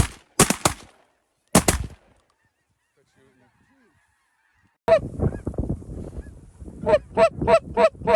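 Shotgun volley: three sharp shots in the first two seconds. After a gap of near silence, snow goose calls start about five seconds in and turn into quick honks of about three a second near the end.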